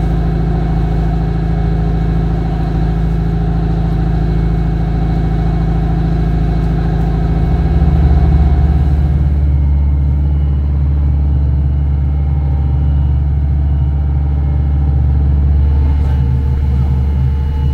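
Fishing boat's engine running steadily under way, a loud low drone. About eight seconds in it shifts to a deeper, heavier drone with less hiss above it.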